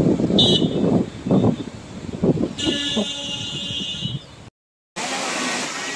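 Wind buffeting the microphone for about the first second, then a high-pitched horn-like tone, briefly once and then held for about a second and a half. After a short cut to silence near the end, the steady rush of a waterfall.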